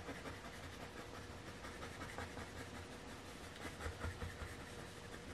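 Colored pencil scratching on paper in short, repeated colouring strokes, faint, over a faint steady hum.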